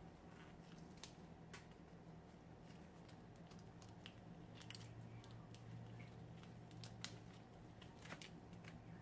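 Faint mukbang eating sounds: scattered soft clicks and crunches from chewing fried, battered lobster, over a low steady room hum.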